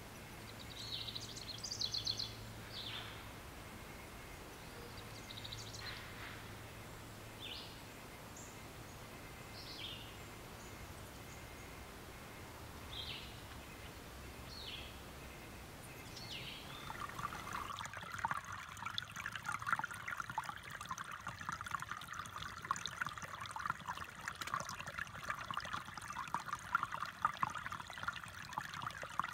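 Scattered short bird chirps over quiet outdoor ambience. A little past halfway the sound changes to a shallow creek trickling and babbling over stones, which runs on steadily.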